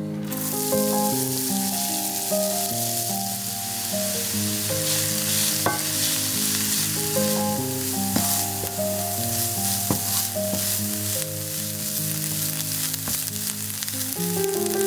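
Chopped onion sizzling in hot oil in a nonstick frying pan, stirred with a wooden spatula that now and then clicks against the pan. Background music plays underneath.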